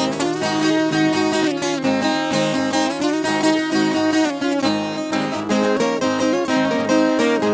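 Viola caipira, the Brazilian ten-string folk guitar, playing an instrumental interlude of a moda de viola between sung verses: quick plucked runs of notes over chords.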